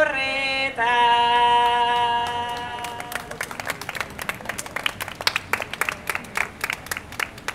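A woman's unaccompanied voice singing the close of an improvised Basque bertso verse, ending on a long held note. About three seconds in, a small audience starts applauding and claps until the end.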